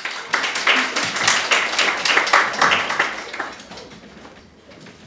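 Audience applauding, the clapping dying away after about three and a half seconds.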